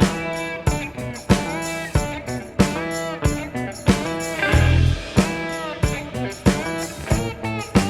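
Background music: guitar notes struck over a steady beat, several of them bending up or down in pitch.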